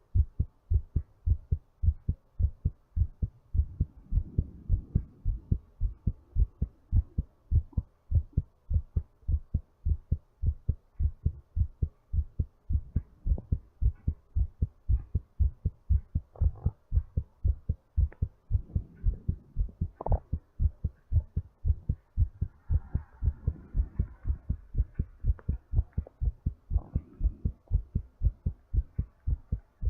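Human heartbeat picked up at the chest, its lub-dub thumps in a steady, unbroken rhythm during recovery from exercise. The noise of deep breathing swells in and fades a few times under the beats.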